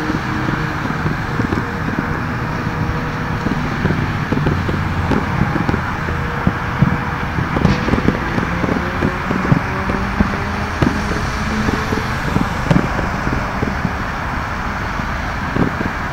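Distant consumer fireworks popping and banging at irregular intervals over a steady background noise.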